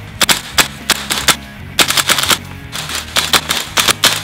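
VFC gas blowback airsoft rifle on green gas firing a fast string of semi-auto shots in quick uneven groups with short pauses. Each shot is a sharp crack with the bolt slamming back. The gun is emptying a freshly gassed 30-round magazine in a shots-per-fill gas efficiency test. Background music plays underneath.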